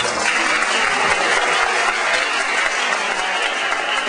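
Applause from many people clapping together, a dense steady patter that keeps up throughout.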